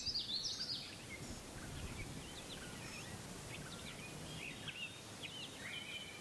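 Birds chirping and calling in short whistled notes, with a quick run of chirps in the first second and scattered calls after, over a faint low rumble.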